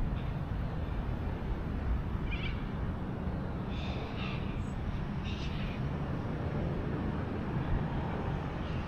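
Steady low wind noise on the microphone, with a few short, high bird calls between about two and five and a half seconds in.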